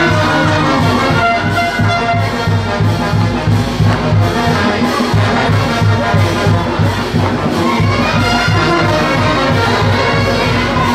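Brass band music, trumpets and trombones over a steady, regular low drum beat.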